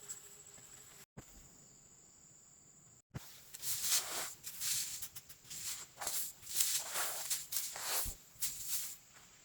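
Irregular swishing and rustling of plants or dry stalks, a quick run of loud noisy strokes starting about three seconds in. Before that a faint steady high insect drone, cut off briefly twice.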